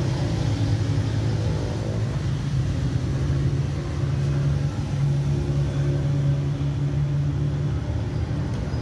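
Steady low mechanical drone, even in level throughout.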